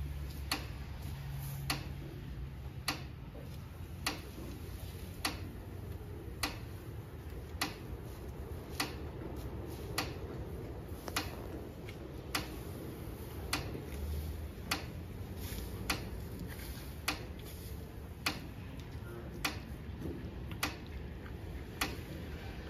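Steady, regular ticking, one sharp tick a little more often than once a second, over a low steady hum.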